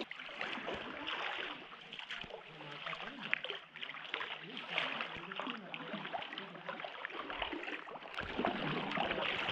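Kayak paddle strokes, with water splashing, dripping and lapping around the paddle and hull as many small irregular splashes.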